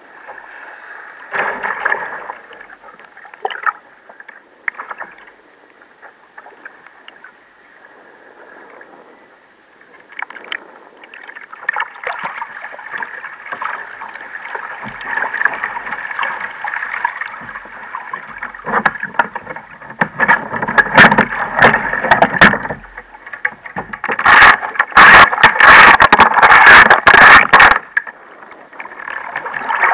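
Choppy sea water splashing and slapping against the hull of a sit-on-top fishing kayak as it is paddled. Quieter at first, it grows busier after about ten seconds, with loud bursts of splashing in the last third.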